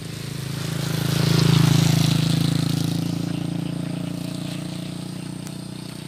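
A motor vehicle passing by on the road: its engine and tyre noise swell to the loudest about a second and a half in, then fade away.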